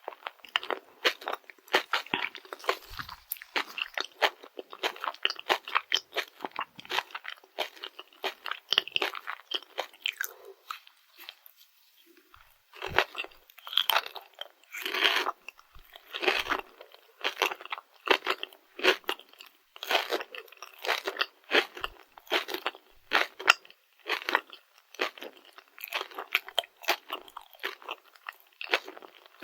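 Close-miked chewing of a Dubai-chocolate rice cake: crisp, crackly crunching of the toasted kataifi pastry filling through soft chocolate and rice cake, dense chews that ease off briefly about eleven seconds in.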